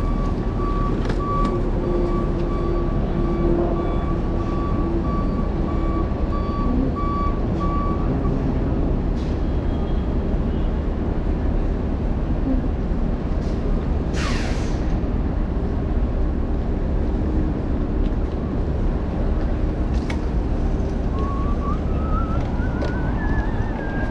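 Steady city traffic and road noise heard while riding, with a vehicle's reversing alarm beeping at an even pace for the first eight seconds or so. A short falling squeal comes about halfway through, and a rising, wavering tone near the end.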